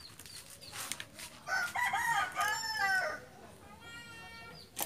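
Rooster crowing loudly, starting about a second and a half in and lasting about a second and a half, with a fainter, steadier crow near the end and a few sharp clicks.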